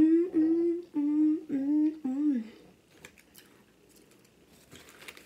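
A woman humming five short held notes with her mouth closed, the last note falling away, over about two and a half seconds. After that come only faint light clicks.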